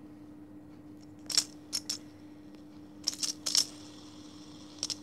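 Short, sharp plastic clicks and clacks as light-up fidget spinners are flicked and handled by fingers on a hard floor: one about a second in, two more just after, a quick cluster around three seconds, and a last pair near the end. A faint steady hum lies underneath.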